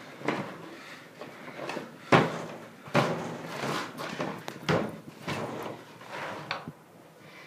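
A series of sharp knocks and bumps, the loudest about two seconds in, with softer rustling and handling noise between them.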